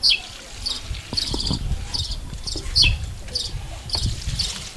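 High-pitched chirping repeated two to three times a second, some chirps falling in pitch, over low thumps and a few knocks.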